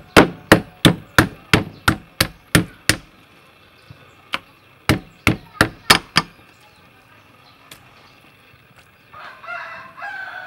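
Meat cleaver striking raw chicken on a wooden chopping block: a run of about nine sharp chops, a pause, then about six more. Near the end a chicken clucks.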